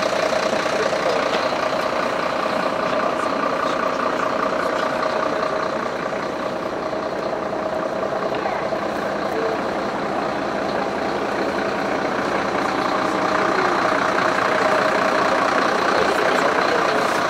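Mercedes-Benz fire engine's diesel engine idling, a steady hum with a constant tone running through it.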